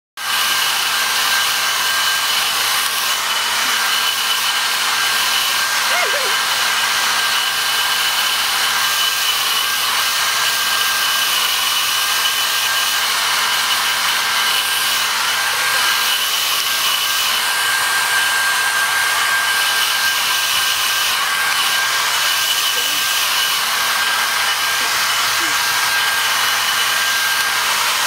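Handheld hair dryer running steadily: a loud, even rushing hiss with a steady high whine in it.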